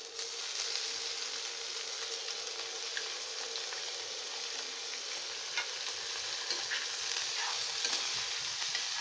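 Raw potato sticks, wet from soaking water, sizzling steadily as they hit hot mustard oil in an aluminium kadai, with a steel spoon clinking against the pan now and then as they are stirred.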